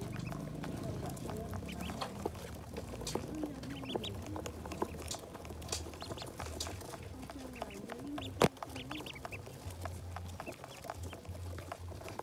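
A crowd of domestic ducklings peeping, many short high chirps overlapping, with one sharp click about eight seconds in.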